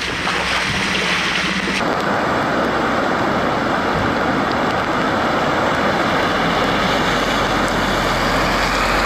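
Footsteps splashing through shallow floodwater. About two seconds in, this gives way to a Toyota Hilux pickup driving through deep floodwater: a steady rush of water thrown up by the tyres, with the engine running underneath.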